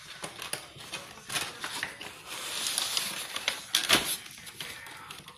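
Toy packaging being handled: a clear plastic bag and cardboard rustling and crinkling in the hands, with small clicks throughout and one sharp click about four seconds in.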